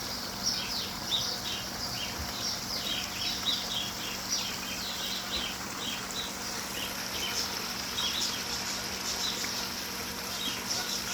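Small birds chirping: many short, high chirps, several a second and overlapping, over a faint steady hum.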